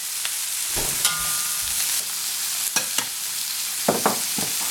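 Vegetable and chicken stir fry sizzling steadily in a hot pan, with a few scrapes and knocks of a utensil against the pan as it is stirred.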